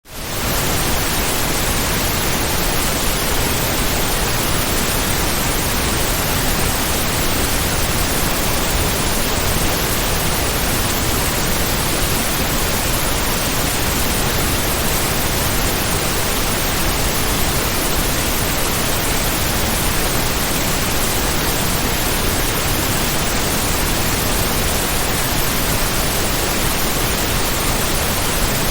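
Heavy rain sound effect: a dense, even hiss with no separate drops heard, fading in over the first half-second and then holding steady.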